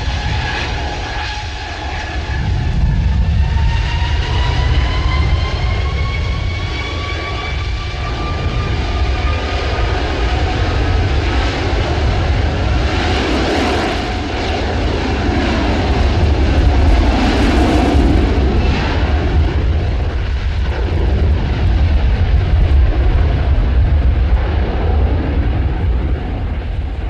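Jet airliner taking off at full power: the engines' whine rises slowly in pitch over the first dozen seconds, over a continuous heavy roar that swells and sweeps as the aircraft passes. Wind buffets the microphone throughout.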